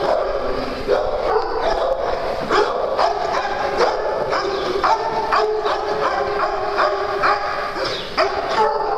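Several dogs barking, short overlapping barks coming several times a second in a continuous din.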